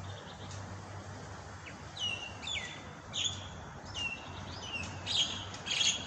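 Wild starlings (jalak) calling: a run of short, sharp chirps, each sliding downward in pitch. They start about two seconds in and come louder and closer together toward the end.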